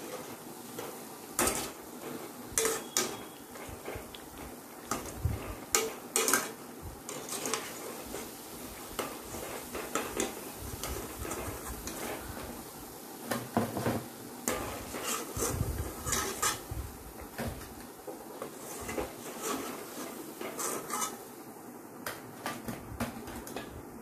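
A metal skimmer clinks and scrapes against a metal kadhai in irregular knocks as fried bread slices are scooped out of hot oil, over a light steady sizzle of the oil.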